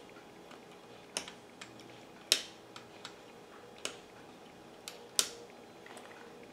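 Flush cutters snipping the trimmed leads of newly soldered capacitors on a circuit board: a string of sharp, irregularly spaced snips, four of them louder than the rest.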